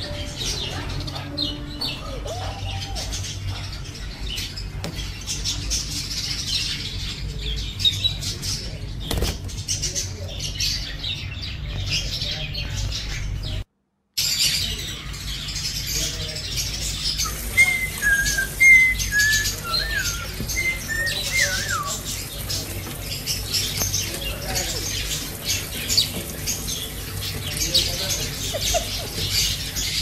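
Pet budgerigars chattering in a cage: a steady mix of soft chirps, squeaks and warbling, with a brief silent break near the middle and a clear run of short whistled chirps a few seconds later.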